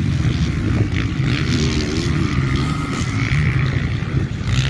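Motocross dirt bike engines running on the race track, their pitch wavering up and down.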